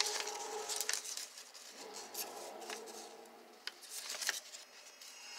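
Paper cut-outs rustling and crinkling as they are slid and pressed over a paper drawing, with many short crackles. A faint pitched drone sounds under it during the first second and again around the middle.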